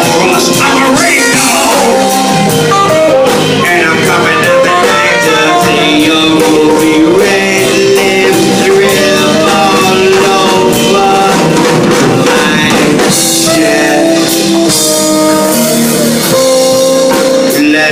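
Live band playing a bluesy instrumental passage: melodic lead lines over guitar and a drum kit.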